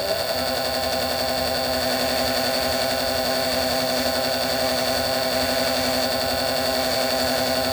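Small lathe running at a steady speed while turning a dog point on a steel grub screw, its motor giving an even whine with a constant pitch.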